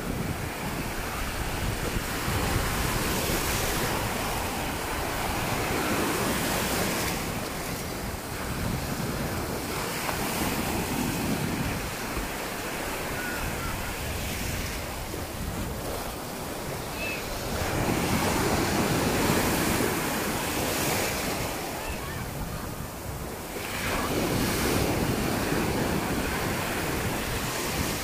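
Sea surf breaking and washing through the shallows, swelling every few seconds as each wave comes in, with wind buffeting the microphone.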